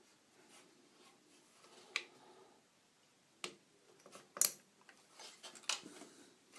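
Several sharp plastic clicks, the loudest about halfway through, from the stock Intel LGA775 cooler's push-pins being pressed down and snapping into the motherboard, with faint handling rustle between them.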